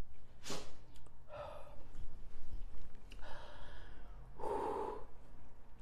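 A woman breathing hard through her mouth: about four noisy inhales and exhales, the loudest near the end. It is the heat of very spicy chili spaghetti that has her panting.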